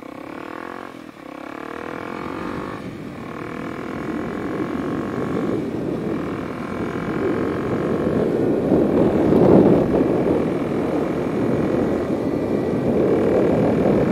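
Kawasaki KLX 300 single-cylinder engine with a carbon slip-on exhaust pulling away and accelerating. The engine note breaks off briefly several times, as at gear changes, while a rushing wind noise grows steadily louder with speed. It is heard from a microphone inside the rider's helmet.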